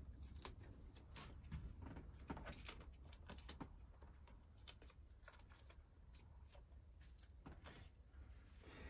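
Near silence: room tone with a low steady hum and faint scattered clicks and rustles.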